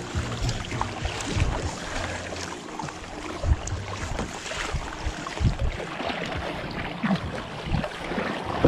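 Water splashing and sloshing around a sit-on-top plastic fishing kayak, with irregular low knocks against the hull and wind on the microphone.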